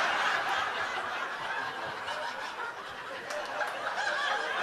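Comedy club audience laughing at a punchline: a sustained wave of crowd laughter that eases slightly as it goes on.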